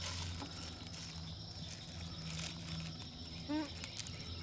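Wood campfire burning quietly, with a few faint pops and crackles. A short murmur from a person comes about three and a half seconds in.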